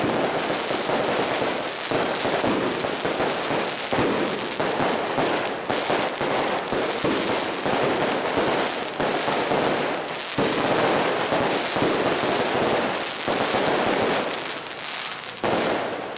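Fireworks going off in a dense, continuous crackle of rapid bangs, thinning out near the end.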